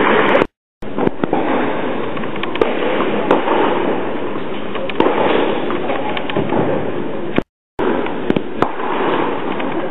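Tennis balls struck by rackets and bouncing, sharp irregular pops echoing over a steady din in an indoor tennis hall. The sound cuts out completely twice for a moment.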